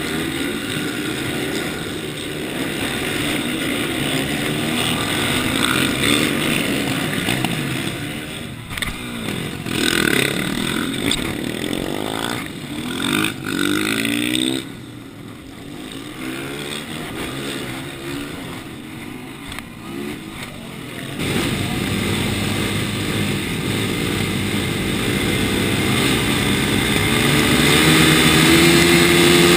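TM supermoto motorcycle engine running at low speed, with several rising and falling revs about a third of the way in. After a quieter stretch, the drone of a group of supermoto bikes idling and revving comes in suddenly and grows louder toward the end.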